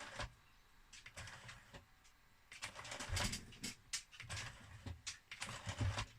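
The tray-loading mechanism of a Mission PCM7000 CD player is running: the loading motor and drive make a lot of motor noise, with irregular clicks and rattles that get busier from about halfway through. The owner suspects the noise comes from a slack drive belt.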